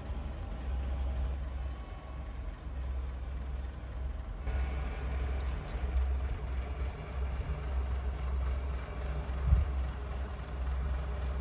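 Low, steady rumble of a heritage diesel multiple unit's engine, first heard on board as it moves. About four and a half seconds in the sound turns more open, with more hiss over the rumble, and there is a single thump near the end.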